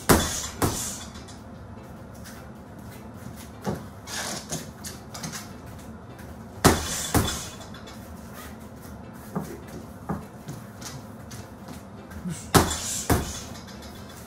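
A hanging heavy bag is hit hard with boxing gloves. The big blows come in pairs about half a second apart, three times, roughly six seconds apart, with lighter strikes on the bag between them.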